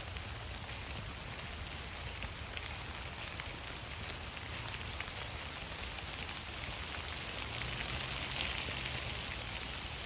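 Steady rain falling: an even hiss made of countless small drop taps, swelling a little about three quarters of the way through.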